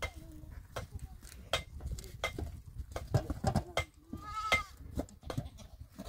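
A goat bleats, one wavering call about four seconds in, among the scattered clicks and knocks of a goat herd moving in a pen.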